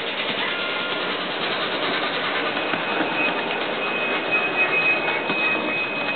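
SoundTraxx Tsunami TSU-750 sound decoder in an N scale Athearn 2-8-0 Consolidation playing steam locomotive running sounds through its tiny speaker as the model runs. A thin steady high tone joins about two and a half seconds in.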